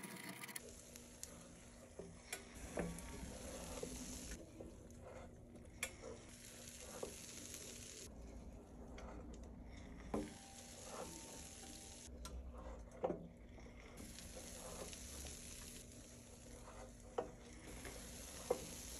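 Batter sizzling on the hot plates of a Cuisinart Belgian waffle maker, a faint steady hiss that thins out twice, with a few sharp clicks and knocks from the lid and flip handle.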